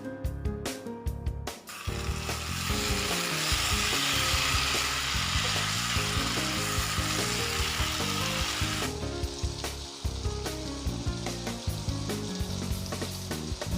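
Pepper chicken frying and sizzling in a pan as it is stirred. The sizzle jumps up about two seconds in, stays loudest until about nine seconds, then settles lower.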